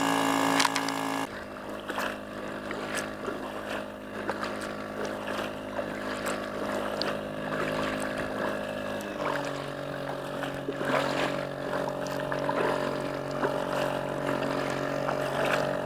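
Small outboard motor on an inflatable boat running steadily, its note shifting about nine seconds in, with short splashes and knocks from paddling a nearby inflatable.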